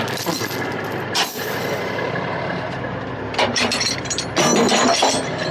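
Heavy diesel engine idling steadily under the clink and clatter of tie-down chains being handled, with a denser run of chain clanking near the end.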